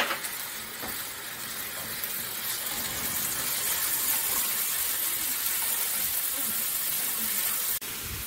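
Onions and green peas frying in hot oil in a pan, a steady sizzle, with a single knock of the utensil at the start as the mixture is stirred with a wooden spatula.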